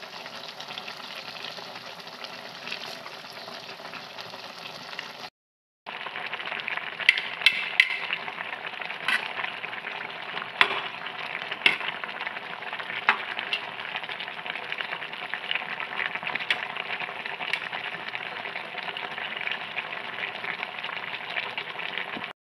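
Broth simmering with a steady sizzle in a wok of malunggay leaves and tilapia. After a short break, a metal spatula stirs through it, with sharp clinks and scrapes against the pan.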